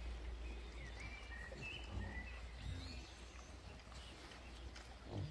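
Pigs and piglets grunting softly while rooting in the soil. A bird chirps a few short notes in the middle, over a steady low rumble.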